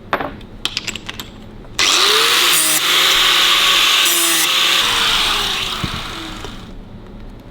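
Angle grinder started about two seconds in, grinding the edges of a stainless steel part for a few seconds, then released and winding down, its motor tone falling away. A few light clicks of handling come before it.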